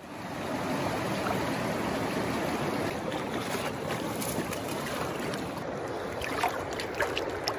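River water rushing steadily past a wading angler, with a few short splashes in the second half as a hooked coho salmon thrashes at the surface while being landed by hand.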